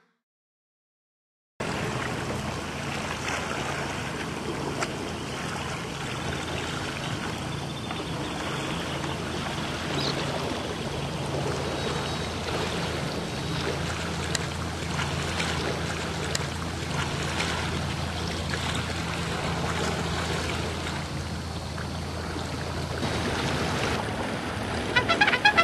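A boat's motor running steadily, with water rushing and splashing against the hull, starting after about a second and a half of silence.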